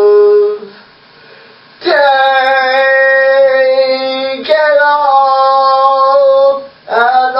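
A voice singing long held notes without words, each note sustained for about two seconds. There is a brief pause about a second in.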